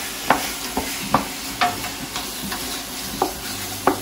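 Chicken pieces and onions sizzling in oil in a stainless steel pot while being stirred with a wooden spoon, with sharp knocks roughly every half second.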